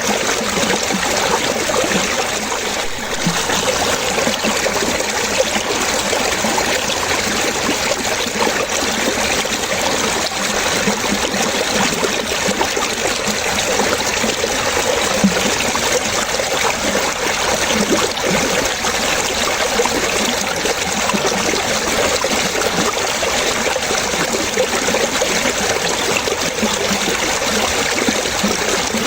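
Running water splashing and trickling steadily, like a small stream over stones.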